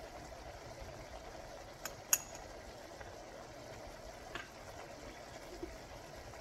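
Pan of gravy simmering on the stove with a steady hiss. Two sharp metal clinks of a utensil against the pan come about two seconds in, and a softer one a couple of seconds later.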